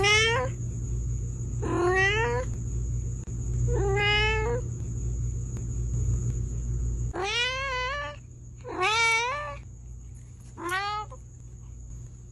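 A cat meowing six times, each meow short and bending in pitch, spaced a second and a half to three seconds apart, over a low background hum that drops away about halfway through.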